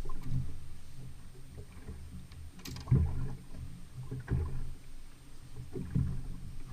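Sounds of a fishing boat on the water: a steady low hum with water noise, broken by a few short knocks or splashes about three, four and six seconds in.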